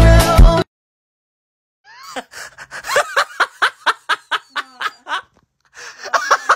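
Dance music stops abruptly, and after a second of silence a woman laughs in two long runs of quick, high bursts.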